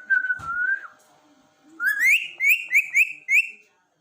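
Pet parrot whistling: one held note of just under a second, then after a pause a rising whistle followed by about five quick upward-sweeping whistled notes.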